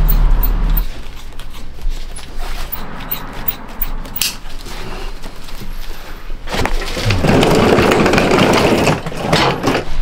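Leather hiking boot being handled and worked by hand, with a few light clicks, then a longer stretch of rough scraping and rubbing of leather about two-thirds of the way in.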